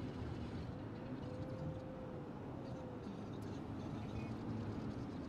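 Steady road and engine noise heard inside a vehicle cabin cruising at highway speed, with a faint whine that rises and falls about a second in.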